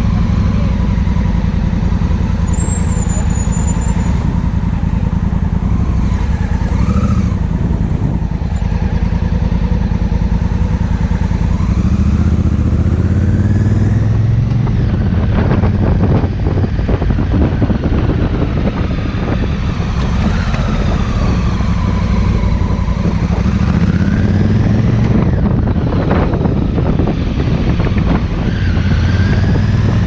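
Honda Africa Twin CRF1000L's parallel-twin engine running under way, its pitch rising and falling with road speed, with wind noise on the microphone.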